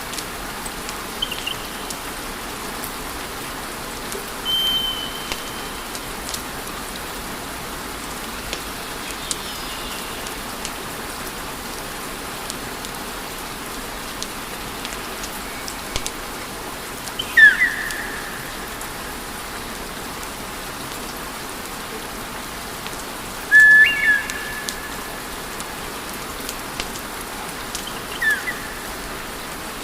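Wood fire burning with a steady hiss and many small crackles, joined by several short, high whistling tones. The loudest whistles come about 17 and 24 seconds in, and the one at 17 seconds falls in pitch.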